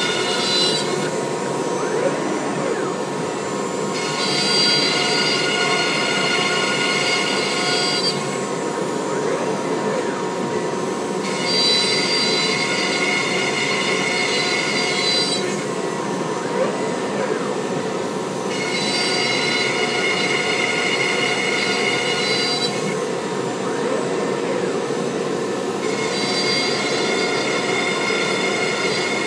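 Home-built CNC router running, cutting bolt holes in MDF with a quarter-inch upcut spiral bit: a steady machine hum with a higher, many-toned whine that comes in for about four seconds at a time, four times, roughly seven seconds apart, as it works hole after hole.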